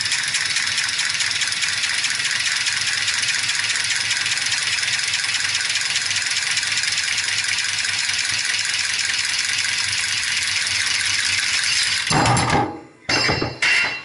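Red cordless power tool running steadily against copper pipe for about twelve seconds with a rattly, even whir, cutting off abruptly, then triggered again in two or three short bursts near the end.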